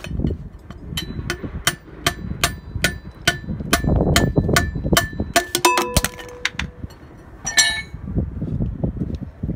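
Hammer striking metal in a steady series, about two to three blows a second, each with a short metallic ring. It ends in a few quicker clinks and one longer ringing scrape of metal.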